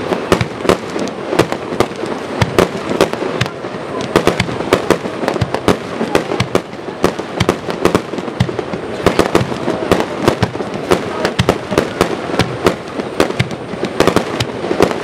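Fireworks display going off in a continuous barrage: sharp bangs and crackles, several a second and irregular, without let-up.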